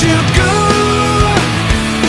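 Background rock music with a steady drum beat and sustained pitched instrumental or vocal lines.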